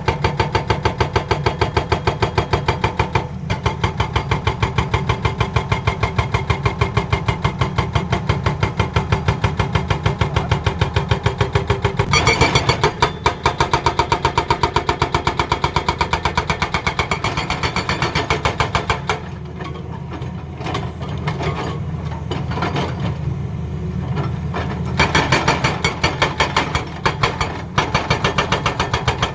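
Excavator-mounted hydraulic breaker hammering in rapid, evenly spaced blows, several a second, over the excavator's running diesel engine. The blows stop for about six seconds about two-thirds of the way through, leaving the engine running, then start again.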